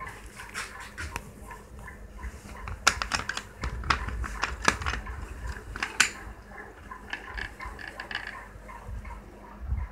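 Handling noise: a run of sharp clicks and knocks, densest between about three and six seconds in, as a kitten and a plastic basket are handled close to the phone.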